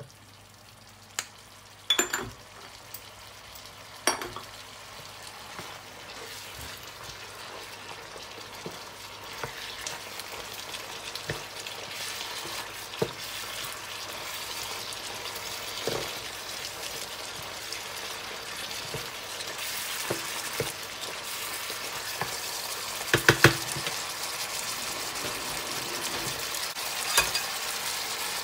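Minced pork and mushrooms sizzling in a frying pan as they are stirred with a wooden spatula, the sizzle slowly growing louder. Sharp knocks of the spatula against the pan come every few seconds, with a quick cluster of them, the loudest, near the end.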